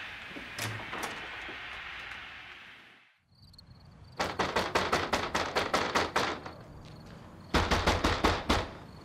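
A fist pounding rapidly on a front door: a run of about ten fast knocks, about five a second, then after a short pause a second, heavier run of about six knocks.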